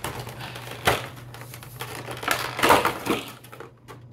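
Clear plastic blister tray crackling and crinkling as it is flexed and lifted out of the box, with a sharp crackle about a second in and a longer, louder stretch of crackling in the second half.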